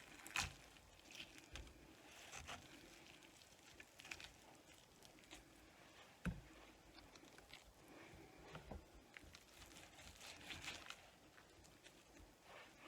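Faint food-handling sounds as hands pull meat off a cold rotisserie chicken: soft scattered rustles and clicks, with a light knock about half a second in and another about six seconds in.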